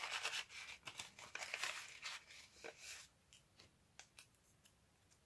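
Paper rustling and crinkling as hands rummage through slips of paper in an envelope, busy for about three seconds, then only a few light ticks.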